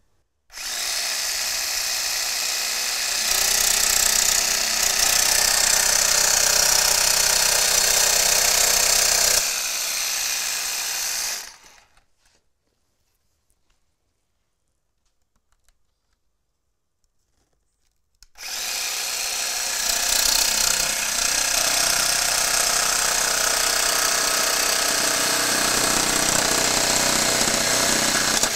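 Festool Carvex jigsaw with an acrylic-cutting blade sawing through a hard-coated acrylic sheet. It runs for about eleven seconds, louder through the middle, stops for about six seconds, then starts again and cuts on.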